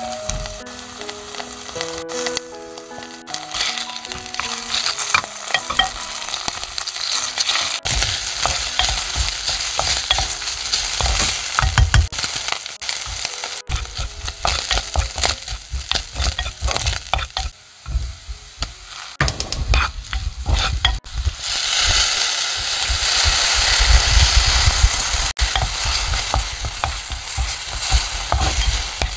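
Oil sizzling in a pot as minced pork is stir-fried, with a wooden spatula scraping and stirring against the pot bottom. The sizzle is loudest about three quarters of the way through, after chili powder and onion are in.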